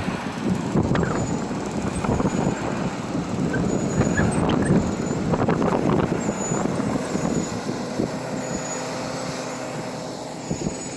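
Heavy truck going by with its engine and tyres running loud, easing off over the last few seconds.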